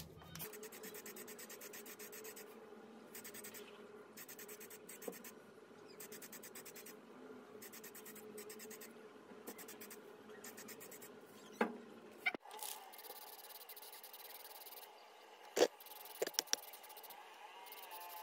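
Aerosol spray-paint can with a clip-on trigger handle hissing in a series of short bursts with brief pauses. About two-thirds of the way in it gives a longer, steadier spray, with a few sharp clicks in between.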